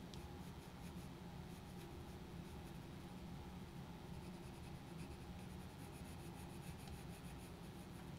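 Faint scratching of a Polychromos colored pencil shading on paper, over a low steady hum.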